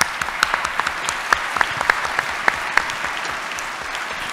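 Audience applauding: a dense patter of many hands clapping, with a few single louder claps standing out.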